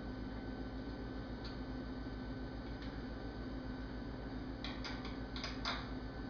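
A few short, light clicks and taps of small parts and tools being handled at the bicycle's crank, most of them close together near the end, over a steady electrical hum.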